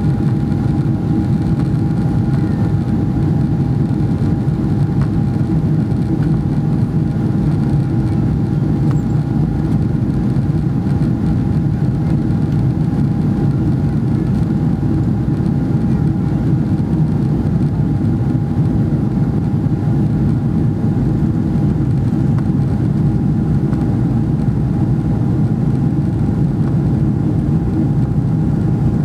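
Steady cabin noise inside a Boeing 777-300ER: the even drone of its GE90-115B turbofans and the rushing air, with a thin steady whine above it, holding unchanged throughout.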